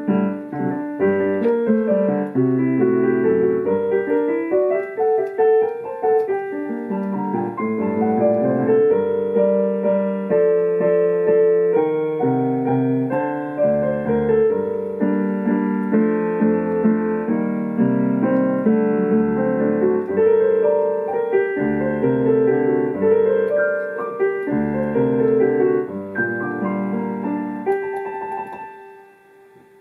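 Solo digital piano playing a lively piece of many quick notes in both hands. The playing stops about two seconds before the end, leaving a final note ringing and dying away.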